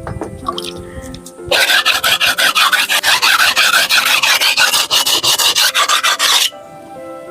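Wood being rasped by hand: a quick run of harsh scraping strokes, about six a second, starting about a second and a half in and stopping near the end, over background music.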